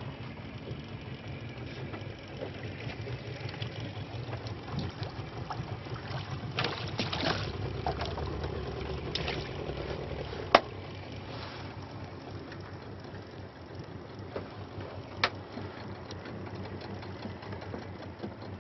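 A small fishing boat under way, its outboard motor running steadily amid water and wind noise. Two sharp knocks are heard, one just past the middle and another about five seconds later.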